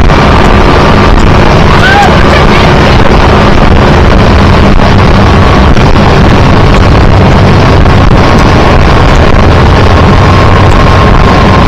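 Motorboat engine running at speed while towing, with strong wind buffeting the microphone and the wake rushing; loud and steady.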